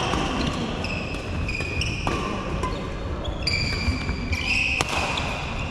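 Badminton rally: rackets striking a shuttlecock several times, about a second or so apart, with sports shoes squeaking sharply on the wooden court floor between the hits.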